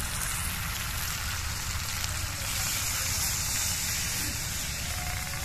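Stingray-and-potato curry sizzling in a pan as hot water is poured in, a steady hiss that grows brighter for a couple of seconds in the middle while the water goes in.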